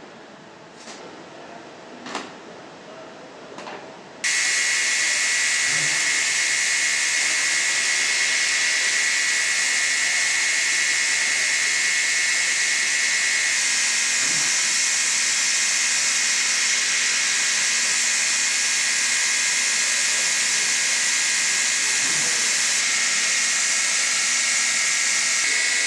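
Automated production-line machinery: a few light clicks, then about four seconds in a loud steady hiss with a high whine sets in suddenly and holds.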